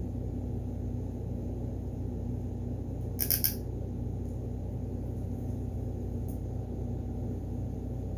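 Steady low room hum, with a quick run of three sharp clicks about three seconds in and a fainter click later, from small hard objects being handled.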